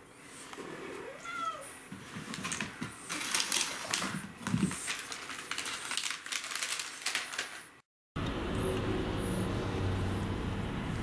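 A domestic cat meows about a second in, one rising-then-falling call, amid scattered light clicks. After a short break, the steady low hum of a car cabin on the move.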